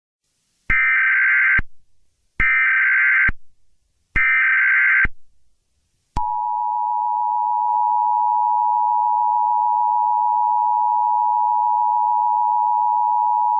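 Emergency Alert System opening: three short bursts of the SAME digital header, each about a second long, a harsh data screech. About six seconds in, the steady two-tone EAS attention signal begins.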